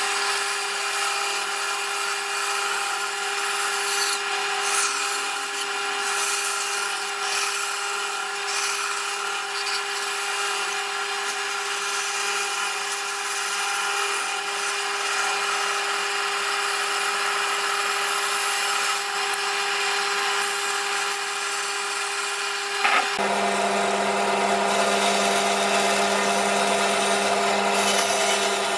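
Bandsaw running steadily with a constant motor hum, its blade cutting through a hardwood board. Near the end there is a click, and a deeper hum joins the sound.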